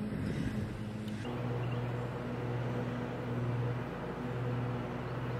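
A steady low motor hum that swells and fades slowly, its tone settling about a second in.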